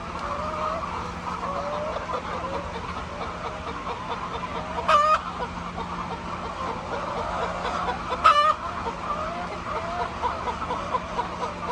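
A flock of chickens clucking constantly, with two loud, short squawks about five and eight seconds in. A faint steady hum lies underneath.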